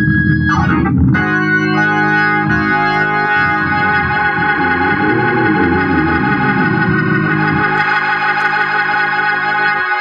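Hammond organ played through a Leslie 122 speaker cabinet, whose amplifier is running on a jumped-in power transformer: a brief chord, a short break, then a long sustained chord from about a second in with lower notes moving under it, cut off just before the end.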